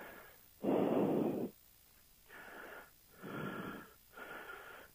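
A person breathing hard: one loud breath about a second in, then three fainter breaths roughly a second apart, as after a fright and exertion.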